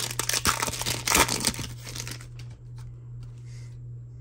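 Foil trading-card pack wrapper crinkling and tearing as it is ripped open by hand, loudest about a second in and dying down after about two seconds.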